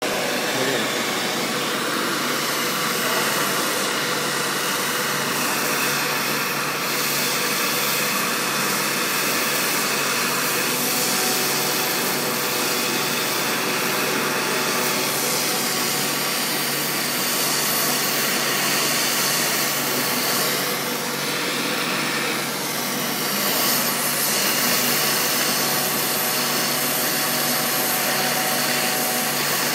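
Gas torch flame hissing steadily as it heats a block of hardened steel to anneal it, with a faint steady hum underneath.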